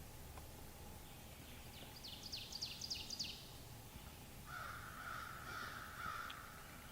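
Wild birds calling in spring woods: a quick run of about eight high, clicking notes about two seconds in, then a longer harsh call about four and a half seconds in.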